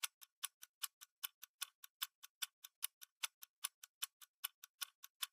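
Faint, rapid, even ticking, about five ticks a second, like a clock.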